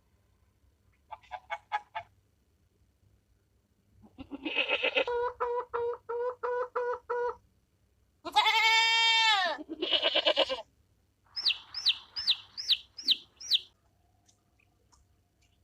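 Farm animals calling one after another: a few short notes, a long pulsing call, two loud drawn-out calls, then a run of six short, high, falling chirps.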